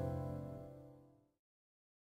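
Music ending: a held piano chord dying away, fading out to silence about a second in.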